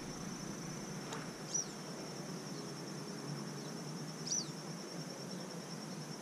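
Insects trilling steadily at a high pitch, with a short descending bird chirp twice.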